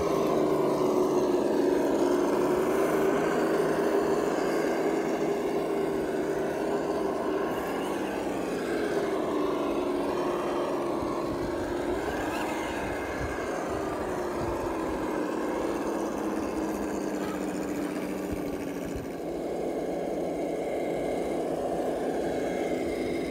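Electric motor and gears of radio-controlled scale crawler trucks whining as they climb a dirt slope, the pitch rising and falling a few times with the throttle.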